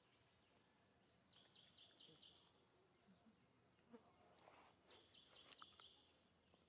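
Near silence, broken by two faint runs of short high-pitched chirps, about a second in and again near five seconds, with a few faint clicks.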